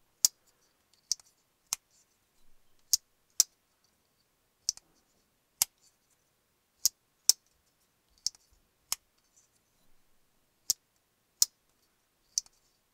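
Jack Wolf Knives Sharpshooter slip joint knife being opened and closed by hand, its backspring snapping the blade into place: about fourteen sharp, separate clicks at uneven spacing, some in quick pairs. This is the knife's walk and talk, the snap that tells the spring's tension and action.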